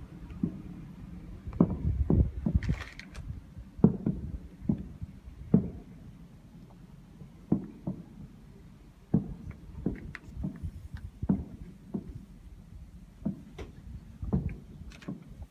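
A series of irregular dull thumps, a dozen or more, a few of them sharper, with a quick cluster about two to three seconds in.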